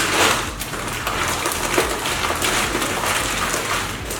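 Plastic zipper bag rustling and crinkling as it is handled.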